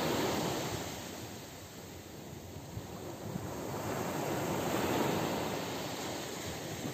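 Sea surf breaking and washing up on a beach in slow swells: one wash fades over the first two seconds and the next builds to a peak about five seconds in.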